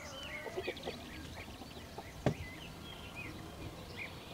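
Small birds chirping in short, repeated calls, with a single sharp knock a little over two seconds in.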